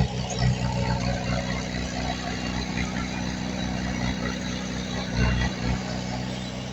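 Diesel engine of heavy earthmoving equipment running steadily, with a few brief swells in level.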